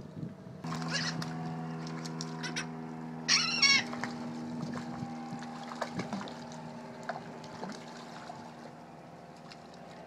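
Gulls calling while being fed, with a loud wavering cry about three and a half seconds in and shorter sharp calls before it. Under them a steady low motor hum starts just after the beginning and slowly fades.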